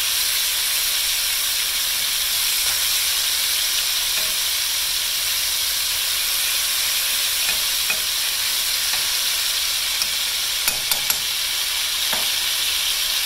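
Flour-dredged round steaks frying in corn oil in a braiser, giving a steady sizzle as they brown. A few light clicks come about three-quarters of the way through.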